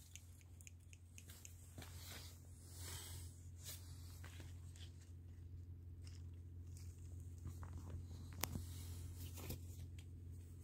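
Faint rustling and scattered clicks of tomato leaves and the phone being handled as a hand brushes through the plants, over a steady low hum. A sharp click stands out about eight and a half seconds in.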